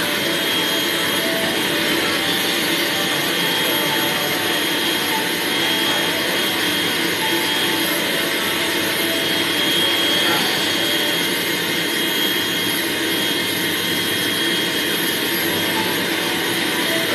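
Pet grooming dryer running steadily: a constant rush of blown air with a thin high whine.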